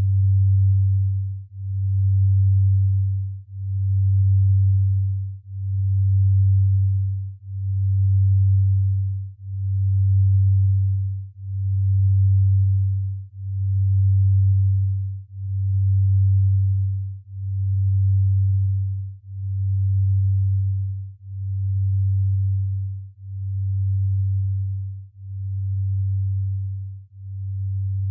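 Low, pure binaural-beat tone of a delta sleep-entrainment track, swelling and fading in a slow even pulse about once every two seconds. It grows gradually quieter over the second half.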